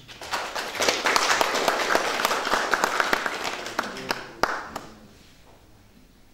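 A group of people applauding, the clapping starting within the first second and fading away about five seconds in.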